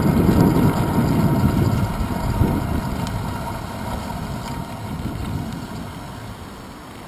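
Wind buffeting a handlebar-mounted GoPro's microphone on a moving bicycle, a heavy low rumble that dies away steadily as the bike slows down.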